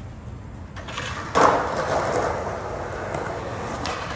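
Skateboard rolling in, then a loud, sustained scrape of its metal trucks grinding along a metal edge for about two and a half seconds, ending in a sharp clack as the board comes down near the end.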